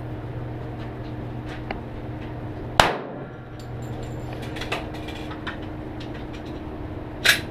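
Two pistol shots, about four and a half seconds apart, the first with a short echo trailing after it.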